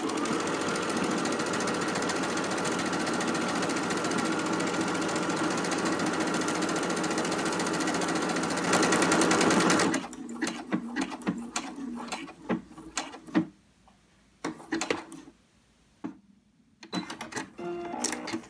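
Domestic sewing machine stitching a one-step buttonhole with the buttonhole foot, running steadily for about ten seconds, louder for its last second, then stopping abruptly. Scattered short clicks and knocks follow.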